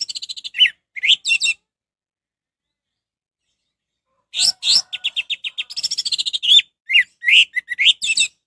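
Orange-headed thrush singing: rapid chattering trills mixed with slurred, downward whistled notes. A short phrase comes at the start, then nearly three seconds of quiet, then a longer phrase from about four seconds in.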